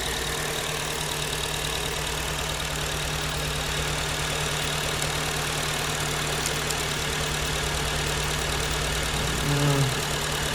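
A 2009 Acura TSX's 2.4-litre four-cylinder idling with a misfire, while a fuel injector connector is unplugged to find the dead cylinder; the idle shows no change.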